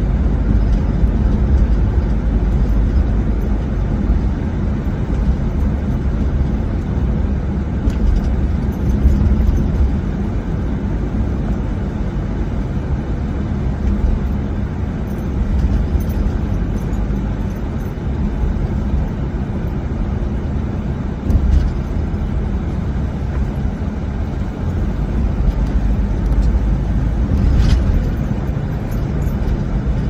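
Steady low road and engine noise of a car, heard from inside the cabin while driving.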